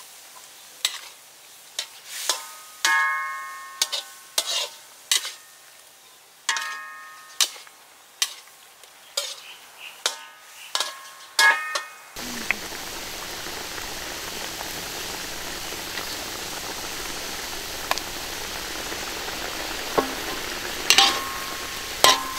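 A metal ladle stirring in a steel wok, knocking against the pan about once a second, with a metallic ring after each knock. About halfway through, a steady sizzling and bubbling of the boiling curry takes over, with only a few more ladle clinks.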